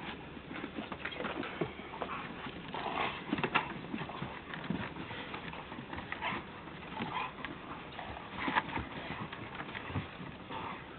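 Two Rottweilers play-wrestling in snow: irregular scuffling, pawing and mouthing noises, with a few short noisy bursts from the dogs.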